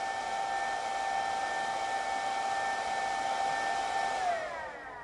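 Electric motor run by a KD600 variable-frequency inverter: a steady whine over a hiss. About four seconds in, its pitch glides down and it fades as the inverter ramps the motor down to a stop.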